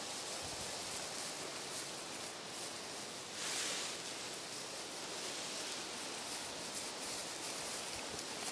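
Tall grass rustling steadily against the camera as it moves through, with a brief louder swell about three and a half seconds in.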